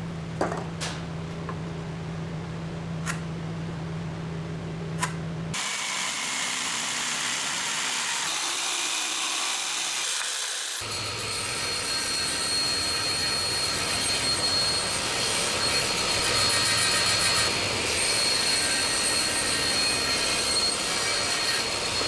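Woodworking power tool working 2x6 lumber, in edited segments: first a steady hum with a few sharp clicks and taps, then abrupt changes to louder machine noise, and from about eleven seconds in a steady running noise with a high whine.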